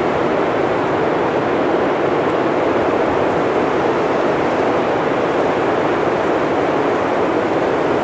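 Blizzard wind blowing steadily and heavily, a dense even rush without gusts.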